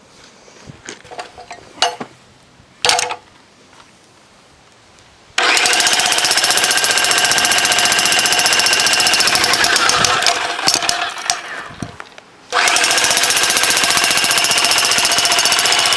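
Jackhammer hammering on a hard drive in two long runs, the first starting about five seconds in and the second about twelve and a half seconds in, with a short lull of scattered knocks between. Its whine rises as it starts and falls as it stops. Before the first run there are only a few scattered knocks and clatters.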